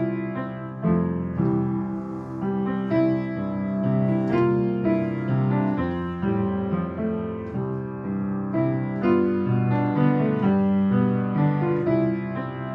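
Piano music: a melody with chord accompaniment played on a piano or electric piano, with notes struck every second or so.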